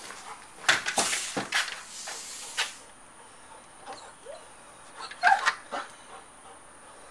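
A cluster of sharp knocks and rattles at a glass-paned door, then a dog whining at the door, with a louder whimper about five seconds in.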